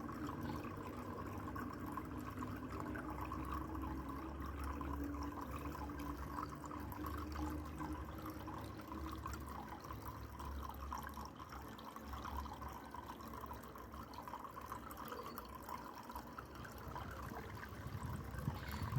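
Water steadily trickling and splashing down a small decorative waterfall feature.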